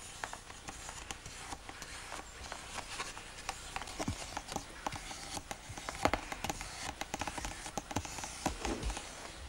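Faint, irregular light taps and clicks of a lacquer brush and hands working on a lacquered vessel, over a steady hiss.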